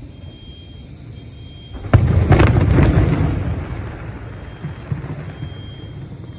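Aerial firework shells bursting: a sharp boom about two seconds in, then a few more bangs and a rumble that slowly fades, with another boom at the very end.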